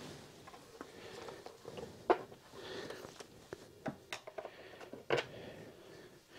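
Scattered clicks and knocks of hand tools and parts being handled as the plastic covers come off a Vespa ET2 scooter engine. The sharpest knock comes about two seconds in, and lighter clicks follow around four and five seconds.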